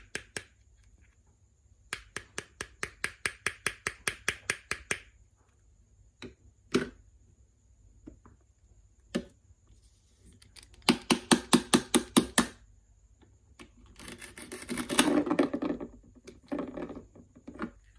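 Small knife chopping on a miniature wooden cutting board in two quick runs of taps, about six a second, with a few single knocks between them, then a longer scraping rustle.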